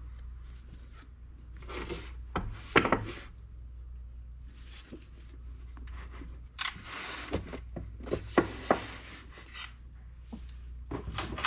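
Paperback manga volumes being slid onto and pushed along a laminated IKEA Billy bookshelf: scattered soft taps and knocks with rubbing scrapes of book against shelf and book against book.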